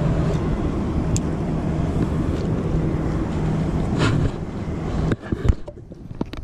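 Small boat's motor running with a steady hum, mixed with wind on the microphone. About five seconds in the sound drops suddenly to a quieter stretch with a few sharp clicks.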